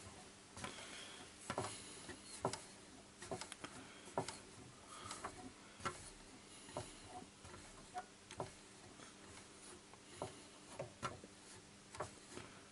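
Plastic gears of a belt-drive turntable's velocity-trip shut-off mechanism clicking faintly and irregularly, about once a second, as the platter is turned by hand and the engaged cam gear drives the mechanism and tone arm back to the reset position.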